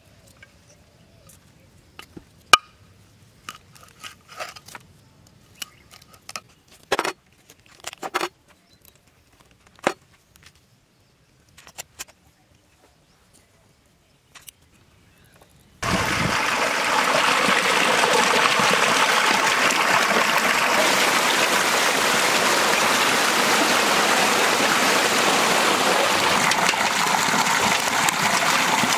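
Scattered soft clicks and snaps of raw quail being handled and cleaned by hand. A little over halfway in, a loud, steady gush of water from a pipe outlet starts suddenly and keeps running.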